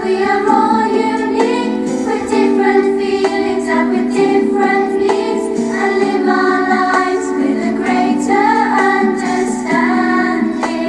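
A song: voices singing together over a plucked-string accompaniment.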